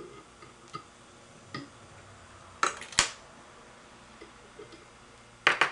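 Small fly-tying scissors snipping the tying thread after a whip finish on the fly's head. There are two sharp snips about three seconds in and a quick run of clicks near the end, with faint ticks of the tools in between.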